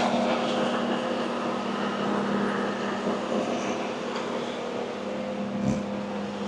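Boatyard travel lift's engine running steadily, a constant hum, with a single brief knock near the end.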